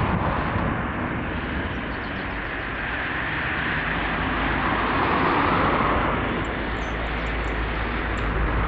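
Road traffic noise: a continuous hiss of passing cars that swells around five seconds in, over a steady low rumble.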